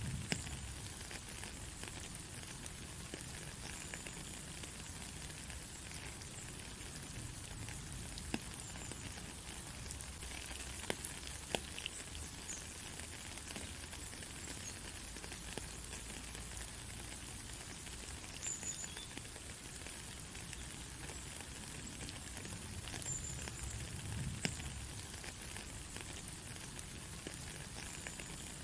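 Steady rain falling on a country road, an even hiss with scattered sharp drop ticks.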